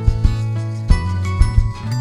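Upbeat background music with a steady beat and sustained bass notes.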